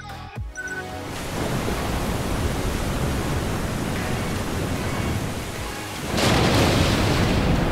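Heavy rushing roar of a large ocean wave breaking, played through the TV and soundbar as a surround-sound demo; it swells louder about six seconds in. A few short electronic chime tones sound in the first second.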